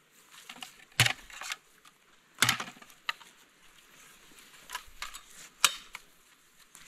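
Sticks of firewood handled and knocked together, giving about six sharp wooden knocks and clacks at uneven gaps, the loudest about a second and two and a half seconds in.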